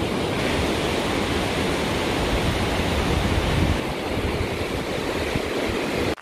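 Hooker River, a grey glacial meltwater torrent, rushing over boulders: a loud, steady roar of water that cuts off suddenly right at the end.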